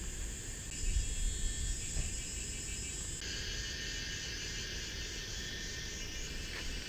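Insects calling in the trees: a steady high-pitched chorus whose pitch shifts about three seconds in, over a low rumble of wind on the microphone.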